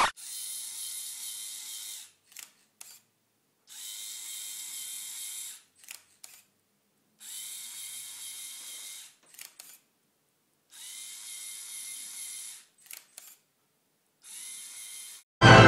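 Lego Mindstorms NXT servo motor whirring in runs of about two seconds, each of the first four runs followed by a pair of sharp clicks from the Canon DSLR's shutter and a short pause, with a fifth run near the end. This is the panorama robot turning the camera one step and taking a shot, over and over.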